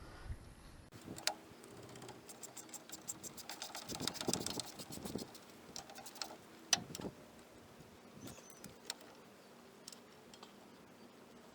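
Hand tools clicking and clinking on the metal parts of a drum brake while the old wheel cylinder is unbolted. A quick run of ticks comes about a third of the way in, followed by scattered sharp metal clinks.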